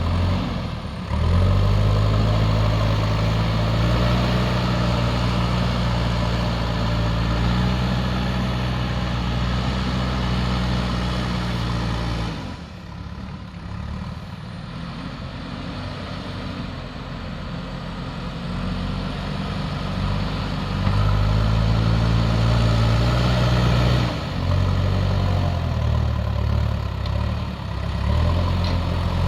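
JCB backhoe loader's diesel engine running steadily, its note dropping abruptly about twelve seconds in and growing loud again in the last third.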